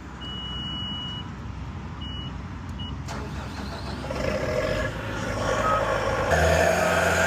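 Heavy construction machine engine running, with a high electronic warning beep early on, one long and then two short. The engine grows louder from about four seconds in and steps up again shortly after six seconds.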